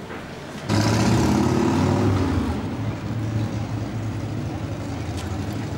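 A motor vehicle's engine running close by. It comes in suddenly about a second in as a steady low hum with a rushing noise above it, is loudest for a couple of seconds, then settles lower.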